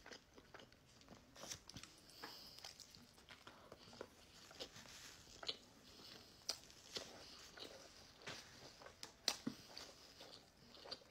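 Faint close-up chewing of a mouthful of sandwich: scattered wet mouth clicks and smacks at irregular intervals, the sharpest about nine seconds in.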